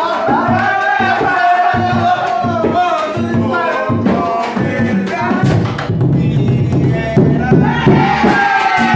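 Music with a singing voice over a steady beat of drums and bass.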